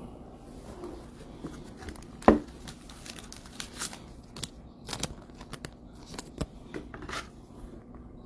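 Baseball trading cards and pack wrappers being handled: a string of small clicks, snaps and rustles, with one sharper snap about two seconds in.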